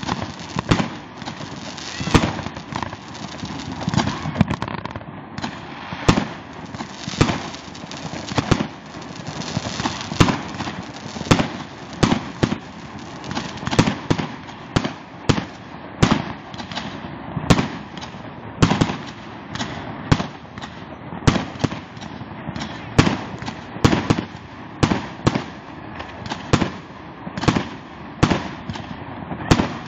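Aerial fireworks bursting overhead: sharp bangs at more than one a second in an irregular run, over a continuous background of fainter bangs and crackle.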